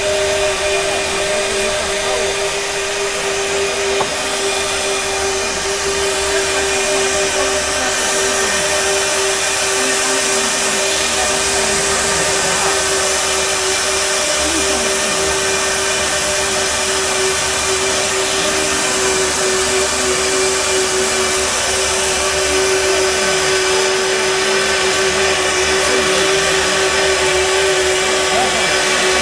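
CTO760 split-frame pipe cutting and bevelling machine running steadily as its tool bevels the end of a large steel pipe: a steady hum with one held tone over a loud hiss, without a break.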